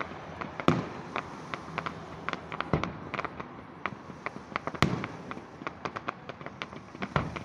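Fireworks display going off: a rapid, irregular string of sharp pops and crackles, with about four louder bangs spread through.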